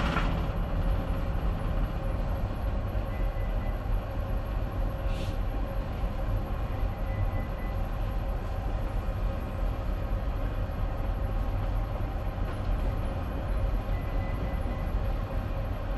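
Steady low rumble of a bulk carrier's engine and machinery, with faint steady hum tones above it.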